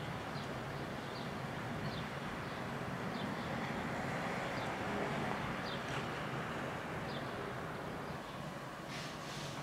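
Steady outdoor background rumble that swells a little in the middle, with faint short high chirps every second or so and a few sharp clicks near the end.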